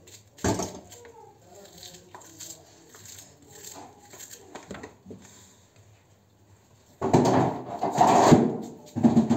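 Small kitchen knife scraping and nicking garlic cloves held in the hand, with a sharp knock about half a second in. A louder, rougher noise comes near the end.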